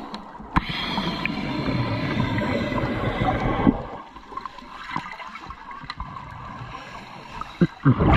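Scuba air bubbling and rushing underwater for about three seconds, then quieter bubbling with scattered small clicks.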